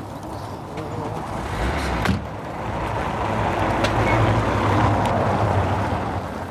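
A car going by on the street, its engine and tyre noise swelling to a peak about four to five seconds in and then fading. There is a single sharp thump just after two seconds.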